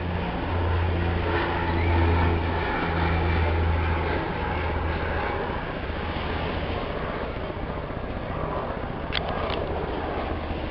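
A low, steady engine drone, loudest in the first four seconds and weaker after, with two short clicks near the end.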